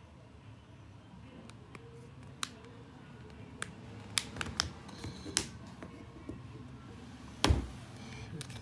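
Scattered sharp plastic clicks and snaps as a phone's back cover is pried off its clips with an opening tool, busiest past the middle, then one heavier knock near the end.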